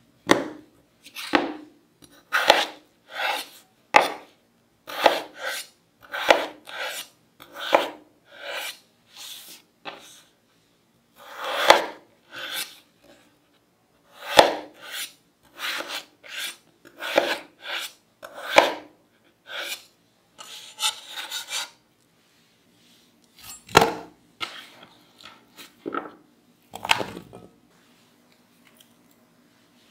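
Kitchen knife slicing through peeled raw potatoes and knocking on an end-grain wooden chopping board, in irregular cuts about one or two a second, each with a short rasp of the blade through the potato. The cuts thin out and stop a couple of seconds before the end.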